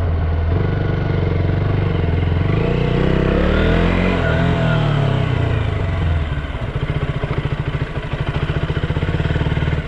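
2014 KTM Duke 200's single-cylinder engine: revs rise and fall over the first several seconds, then drop about six seconds in to a low, evenly pulsing idle.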